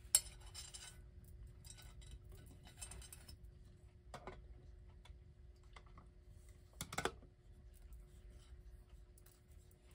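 Faint handling sounds of a Jefferson Golden Hour mystery clock being set back onto its base: a sharp click right at the start, light scraping and rustling, and two short knocks about four and seven seconds in.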